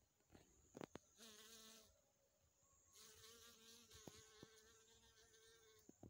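Faint buzzing of a honeybee's wings, in two spells: a short buzz about a second in, then a longer one from about halfway on whose pitch wavers up and down. A few faint clicks come between them.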